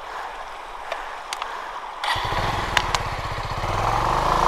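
Bajaj Avenger 220's single-cylinder engine: quiet at first with a few sharp clicks, then about two seconds in the throttle opens abruptly and the engine's pulsing note comes in loud, climbing in pitch as the motorcycle pulls away.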